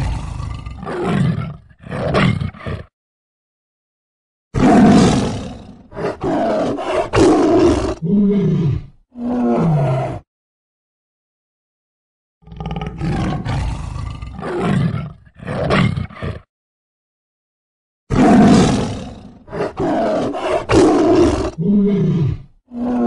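Tiger roaring and snarling in bouts of several roars, separated by a couple of seconds of complete silence. Some roars end in a falling moan.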